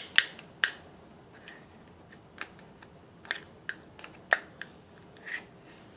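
Irregular sharp clicks and taps of a spoon stirring slime and orbeez in a container, about one or two a second.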